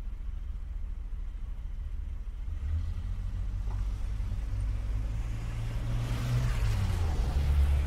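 Street traffic: low engine rumble of cars, with a vehicle approaching and passing that builds from a few seconds in and is loudest near the end.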